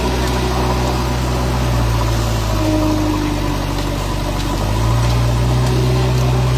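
JCB backhoe loader's diesel engine running steadily, then speeding up and growing louder about two-thirds of the way through as the front bucket shoves a fallen tree.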